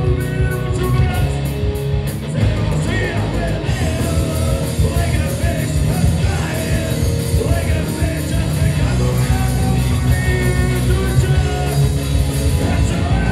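Live rock band playing: lead vocals over electric guitars, bass guitar and drums.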